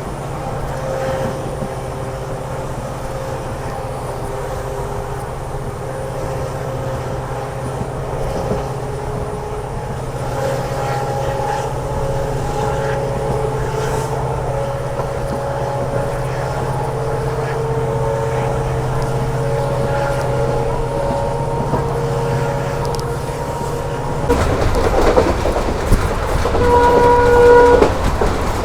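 Train running behind a WDP4D diesel locomotive with its EMD two-stroke engine: a steady engine drone under the wheel and rail noise, which grows louder about 24 seconds in. A short horn blast sounds near the end.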